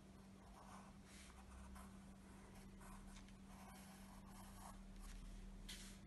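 Pencil lead scratching faintly on drawing paper in a series of short strokes, the strongest near the end, over a steady low hum.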